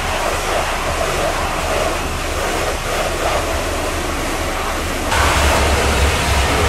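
Pressure washer spraying water: a steady hiss over a low hum, getting louder about five seconds in.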